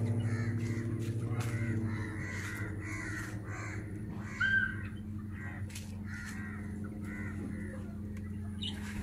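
Short harsh animal calls repeating several times a second over a steady low hum that drops away after about two seconds, with one brief high beep about four and a half seconds in.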